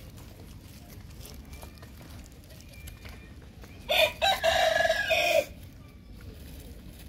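A rooster crowing once, loud, about four seconds in: a couple of short opening notes running into a long held note, about a second and a half in all.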